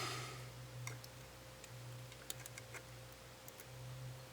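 Faint, scattered small clicks and taps of tools handling a DSLR's ribbon-cable connectors and latch tabs, after a soft rush of noise at the start, over a steady low electrical hum.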